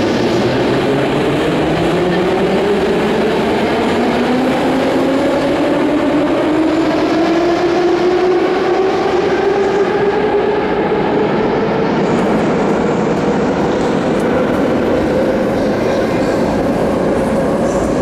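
Electric metro train pulling out of the station, its traction motors giving a whine that rises steadily in pitch as it gathers speed, over loud steady running and rail noise. The whine levels off near the end.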